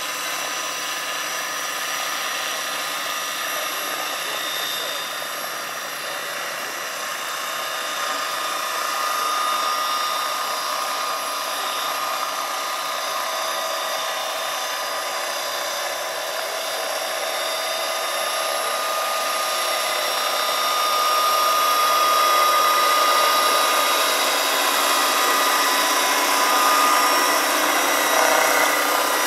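Large electric scale model Bell 212 helicopter lifting off and hovering low: a steady electric-motor and gear whine over the hiss of the turning rotor. It gets louder in the second half.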